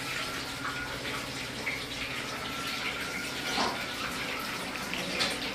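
Water running steadily from a kitchen tap into a stainless-steel sink as hands are washed under it.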